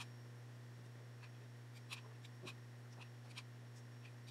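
Quiet room with a steady low hum and a few faint, scattered clicks as a hot glue gun is worked against a glass bowl.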